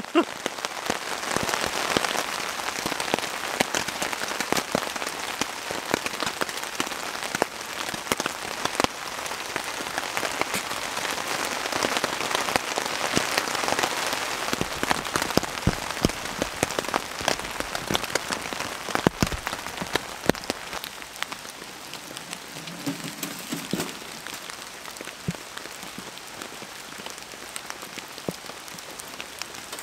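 Rain falling on a tent's fabric, heard from inside: a dense patter of separate drop hits that gets quieter about twenty seconds in.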